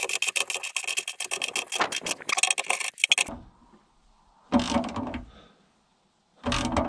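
Socket ratchet wrench clicking rapidly as it tightens a bolt on a galvanised-steel solar-panel mounting bracket. The clicking stops about three seconds in, and two short, duller sounds follow near the end.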